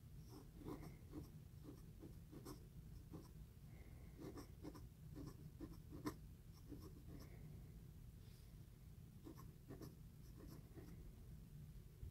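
Steel dip pen nib scratching across paper in short, irregular strokes as calligraphy letters are written, faint, over a low steady hum.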